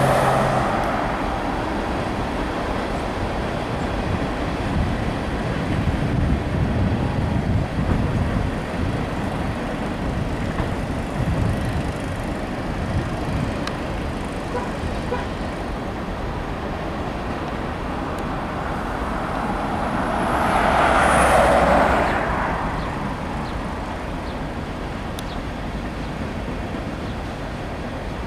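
Steady rumble of passing vehicles, with one vehicle swelling past, loud and close, about 21 seconds in.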